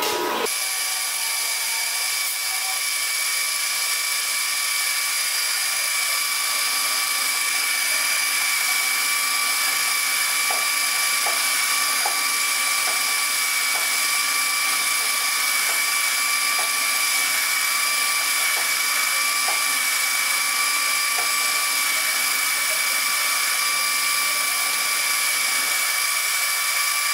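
Small metal lathe running steadily with a high-pitched motor whine, the spinning chuck driving a rod onto a drill bit that bores into its end. A few faint ticks come in about halfway through.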